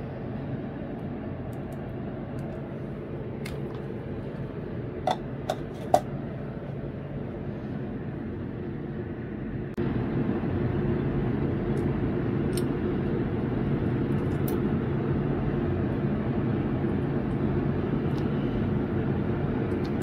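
Steady low hum and rumble with a few light clicks about five to six seconds in; the hum steps up suddenly louder about ten seconds in.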